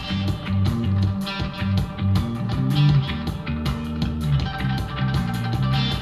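Rock music with guitar and a steady beat, played through a JBL Charge 3 portable Bluetooth speaker at 70% volume and picked up from about six feet away.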